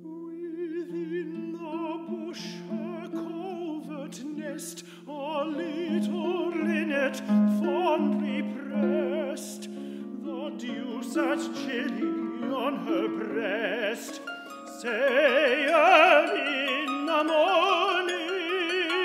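Tenor singing in classical style with wide vibrato, accompanied by plucked concert pedal harp. The voice swells louder about three-quarters of the way through.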